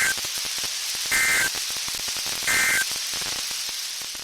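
NOAA Weather Radio sending the EAS end-of-message code: three short, warbling bursts of SAME digital data tones, about a second and a half apart, the first just at the start, over steady radio static. The bursts close out the alert broadcast.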